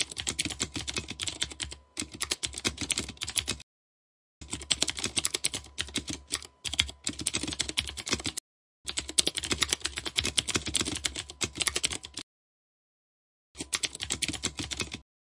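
Rapid computer-keyboard typing sound effect of many quick key clicks, in runs of a few seconds broken by short dead silences.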